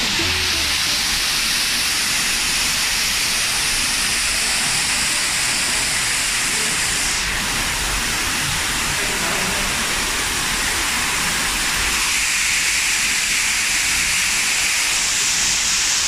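Artificial waterfall pouring close by: a steady, loud hiss of falling water splashing onto rock and the wet ground below.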